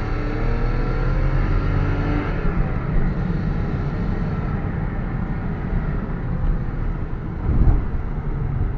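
BMW E34 heard from inside the cabin while driving. The engine note rises briefly at first, then gives way after about two seconds to a steady low road-and-tyre rumble. A single low thump comes about seven and a half seconds in.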